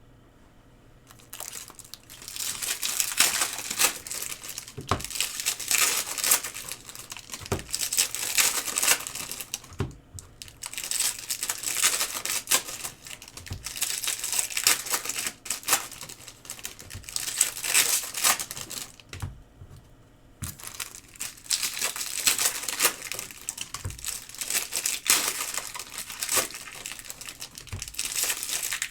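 Foil trading-card pack wrappers being torn open and crinkled in the hands, in three long bouts with brief pauses about ten and twenty seconds in.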